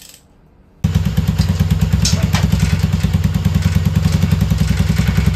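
Four-stroke Regulmoto Grido scooter engine idling through a replica Akrapovič straight-through muffler, with a fast, even exhaust pulse. The sound comes in abruptly about a second in.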